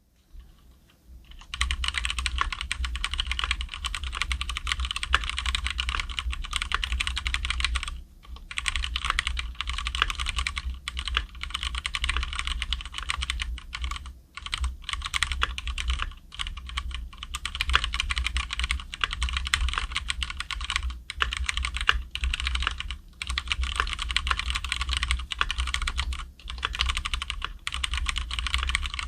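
Fast, continuous typing on a Cherry MX Board 3.0S mechanical keyboard with Cherry MX Red linear switches soldered straight to the board with no steel plate. It starts about a second and a half in, with a few brief pauses. The sound is clean and quiet with no rattle.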